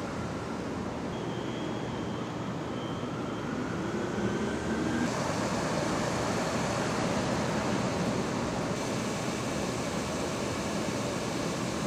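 Steady city street traffic noise, with a faint whine rising slowly in pitch over the first few seconds. The noise gets a little louder and brighter about five seconds in.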